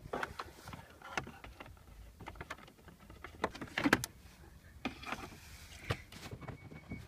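Irregular handling clicks, knocks and rustles around the car's dashboard and glovebox wiring, the loudest cluster about four seconds in.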